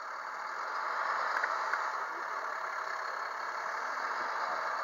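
Wildland fire engine's diesel engine running steadily at idle.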